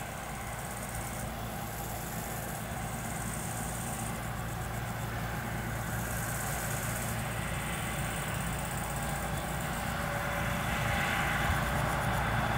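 DR1A diesel multiple unit pulling away from a station under power, its diesel engine giving a steady low drone that grows gradually louder as the train approaches.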